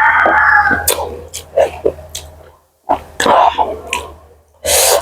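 Close-miked mukbang eating sounds: loud slurping and sucking at buffalo bone marrow with wet chewing, a squealing suck in the first second and a loud noisy slurp near the end.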